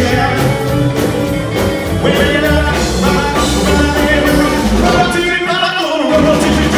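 Live rockabilly band playing: upright bass, drums, piano and electric guitar. About five seconds in, the bass and drums drop out for about a second while the higher instruments carry on, then the full band comes back in.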